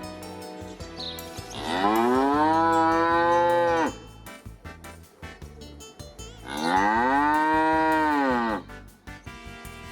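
A cow mooing twice: two long calls of about two seconds each, each rising and then falling in pitch, over quiet background music.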